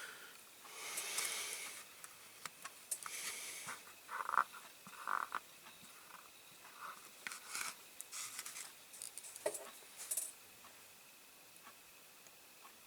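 Faint workbench handling noises of small parts and tools: soft scrapes and rustles, a couple of short squeaks and scattered light clicks, dying away about ten seconds in.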